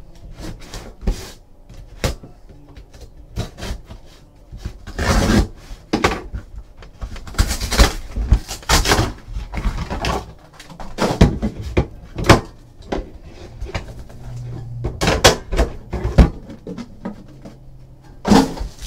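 Handling and unsealing a trading card box: plastic shrink wrap crinkling and tearing, cardboard box lid and flaps opened, with repeated knocks and taps on the table. The loudest rustling comes about five seconds in and again about eight to nine seconds in.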